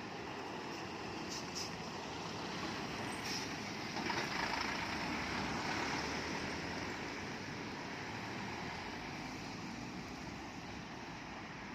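A heavy road vehicle, truck or bus, passing: engine and tyre noise swell to their loudest about four to six seconds in, then fade away.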